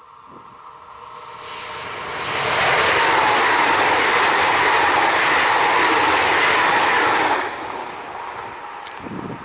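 An electric passenger train passing at speed. A rushing rail and air noise builds as it approaches, stays loud for about five seconds while the cars go by, then drops off sharply as the last car passes and fades away.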